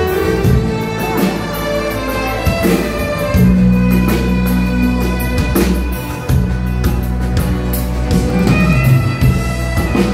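Instrumental music for a wedding procession: held melody notes over a drum beat.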